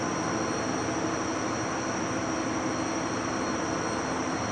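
Steady background hum and hiss with a faint high whine, unchanging throughout.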